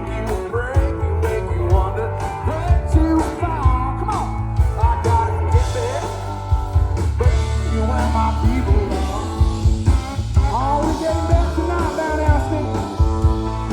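Live rock band playing: a singer's vocal line over electric guitar, a heavy steady bass and a drum beat.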